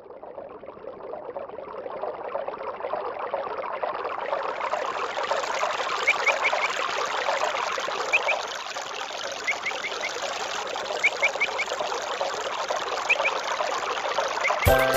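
Running water, fading in over the first few seconds and then steady, with short high chirps in groups of two or three every second or two. Music starts at the very end.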